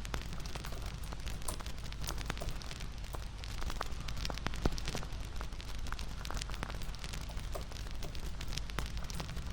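Wood fire crackling: irregular sharp pops and snaps over a steady low rumble, with one louder pop about halfway through.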